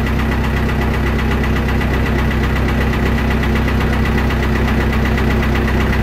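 John Deere 450's engine running steadily at a constant speed, with a thin steady whine above the rumble.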